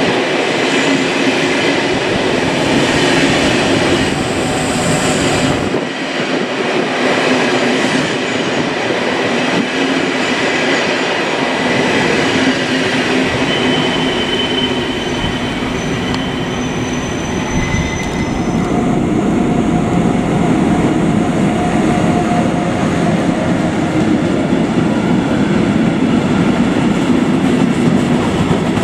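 Passenger coaches rolling out and away along the rails, with brief high wheel squeals around the middle. Then a freight train of tank and sliding-wall wagons runs past close by on the next track, louder over the last third.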